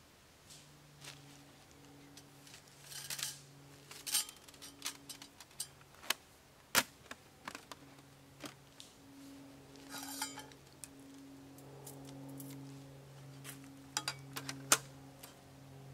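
Stainless-steel folding camping grill being assembled: metal clinks and clicks as the wire frame is unfolded and thin steel panels are slid and slotted into it, with short scraping rustles of sheet metal. The sharpest clicks come about halfway through and near the end.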